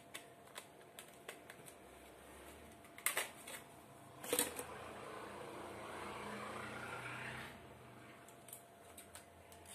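Faint clicks and rustling of small objects being handled, with a couple of sharper clicks about three and four seconds in.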